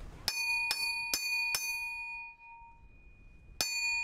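Hammer blows on the steel front idler of an AHM mini excavator's track frame. There are four quick strikes about half a second apart, each ringing like a bell, then a pause and another strike near the end. The tapping is meant to knock the idler back toward the middle and slacken the track.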